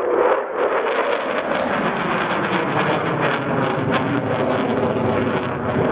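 F-15 fighter jet's twin turbofan engines at high power as it climbs and turns overhead: a steady rush of jet noise with some crackle.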